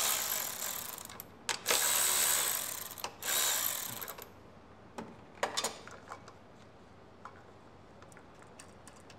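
Cordless electric ratchet running in three short bursts, spinning 7/16 nuts off a Briggs and Stratton Intek engine. A few light clicks follow as parts are handled.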